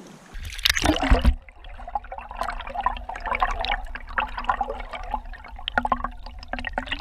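Water splashing and gurgling close to the microphone, over a steady low rumble that starts abruptly a moment in.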